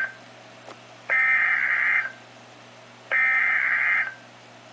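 NOAA Weather Radio Emergency Alert System SAME header being sent: the end of one buzzing, two-tone digital data burst, then two more, each about a second long and about a second apart. This is the coded header that opens a new warning, here a tornado warning.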